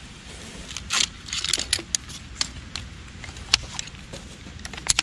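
Ultralight camp chair being unpacked and its pole frame unfolded: a rustle of the bag and poles sliding out about a second in, then a string of sharp clicks and clacks as the pole sections snap into the hub.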